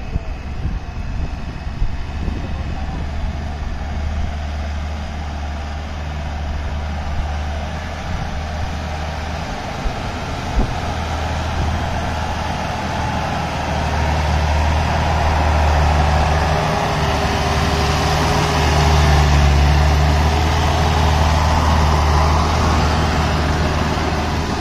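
Truck engine running hard under load, working through loose, freshly dug soil; it grows louder from about halfway through and is loudest near the end.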